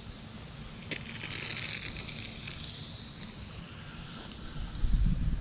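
Rain Bird lawn sprinkler head spraying water: a hiss of spray that starts with a click about a second in, swells, then fades over the next few seconds. There is some low rumbling near the end.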